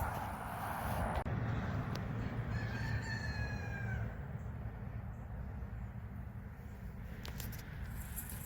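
A rooster crowing once, a single call of about a second and a half that drops in pitch at its end, over a steady low rumble.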